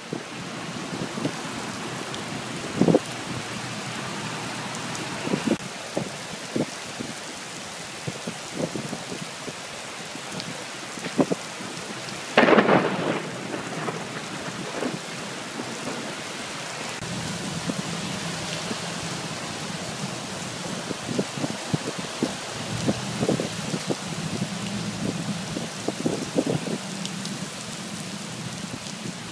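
Heavy rain pouring down on wet pavement, a steady hiss of rain on the surface. A few sharp, loud knocks break through it, the loudest about twelve seconds in.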